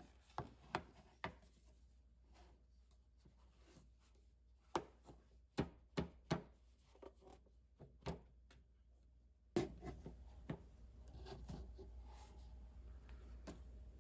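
A metal loaf tin knocking and clattering on a wooden tray as a baked cake is turned out of it: a dozen or so sharp knocks in irregular bunches, with soft rubbing of a cloth towel in between.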